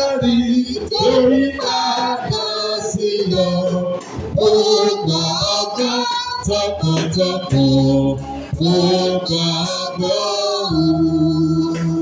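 Choir singing a church song to instrumental accompaniment, with a bass line and a steady percussion beat.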